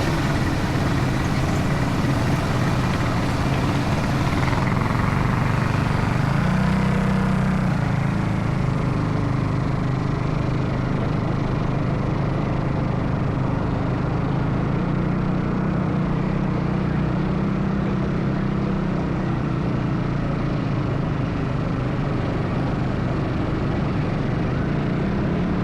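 ATV engine running steadily while under way, its hum shifting a little in pitch as the throttle varies.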